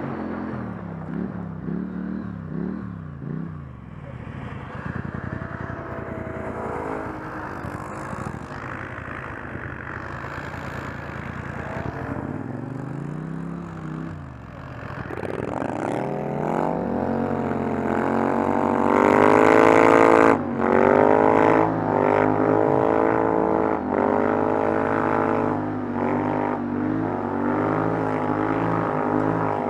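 ATV engine running under way, its note dipping and rising as the machine slows and speeds up. From about fifteen seconds in it revs up hard, loudest around twenty seconds, then holds a steady high drone.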